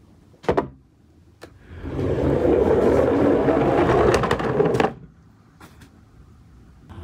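A plastic toy garbage truck is set down on a wooden board with a knock, then its plastic wheels rumble for about three seconds as it rolls down the wooden slope, ending in a knock as it stops.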